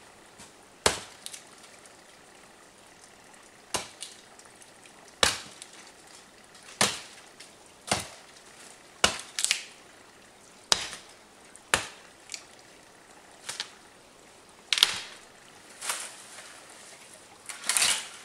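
An axe chopping into wood: about a dozen sharp strikes at uneven gaps of a second or so, the last one near the end longer and ragged.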